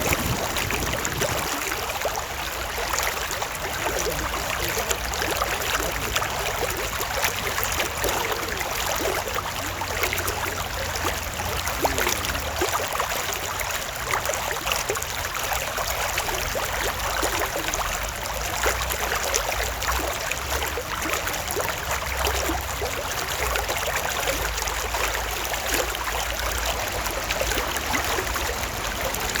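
Shallow stream flowing steadily over stones, a continuous trickling and babbling with a low rumble underneath.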